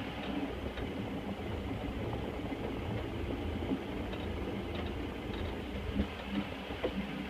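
Toyota 22R four-cylinder engine running steadily as the pickup drives, with a steady rumble and scattered small knocks and rattles; one sharper knock about six seconds in.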